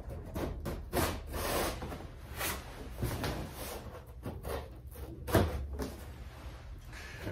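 A small cutting tool slicing and scraping along the edges of a large corrugated cardboard box in several uneven strokes, with the cardboard rustling and knocking as the box is handled.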